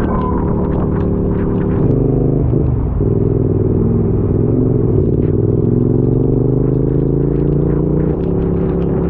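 Motorcycle engine running under way, its pitch creeping up slowly as it accelerates, then dropping suddenly about eight seconds in as the throttle eases or it shifts gear.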